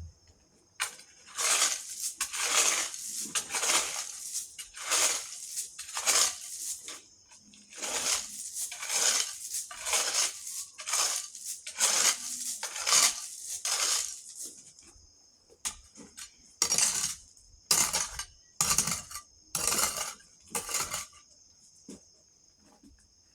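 Repeated scraping strokes through loose ballast (crushed stone) and sand as leftover material is gathered into a heap, about one to two strokes a second. There is a lull a little past the middle, then a few more sharp strokes. Crickets chirp steadily behind.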